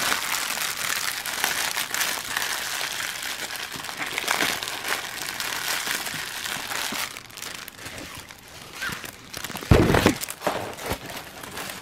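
Clear plastic packaging crinkling as a diamond-painting kit's bagged drills and canvas are handled, easing off after about seven seconds. One short, loud knock comes about ten seconds in.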